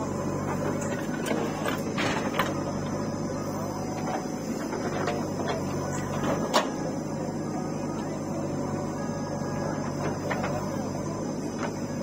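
JCB 3DX backhoe loader's diesel engine running steadily under load while the backhoe digs, with a steady whine over it and several sharp metallic knocks from the arm and bucket, the loudest about six and a half seconds in.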